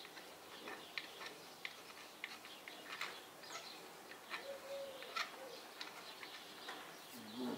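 Hand scraper working inside a newly pressed-in camshaft bushing of a D115 engine block, trimming it to the camshaft: faint, irregular short metal-on-metal scrapes and ticks. A pigeon coos briefly about four to five seconds in.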